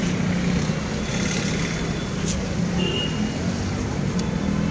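Street traffic noise: vehicle engines running steadily, with a short high-pitched tone about three seconds in.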